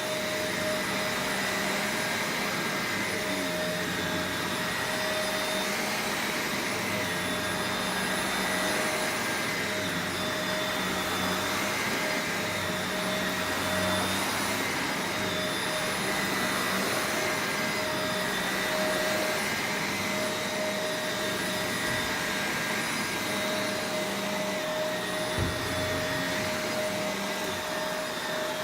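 Shark Rotator Professional Lift-Away upright vacuum cleaner running steadily, a high motor whine over a rush of air, its pitch dipping slightly about every two seconds.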